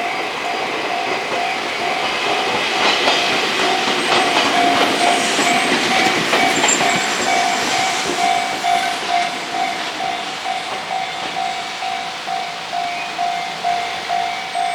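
Japanese level-crossing warning bell ringing steadily, a little under two dings a second, while a Fukushima Kōtsū Iizaka Line electric train runs past. The train's rumble and wheel clatter are loudest from about three to nine seconds in.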